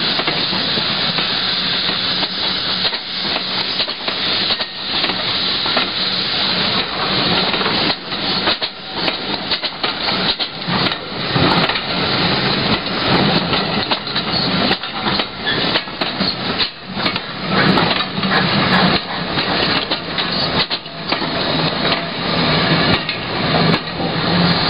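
GWR steam train passing close by: a steady hissing rush with many irregular clanks and knocks from its wheels and running gear.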